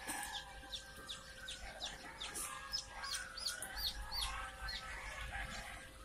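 A crowd of newly hatched chicks in a hatchery crate peeping: many short, high cheeps overlapping, coming thicker after the first couple of seconds, over a steady faint hum.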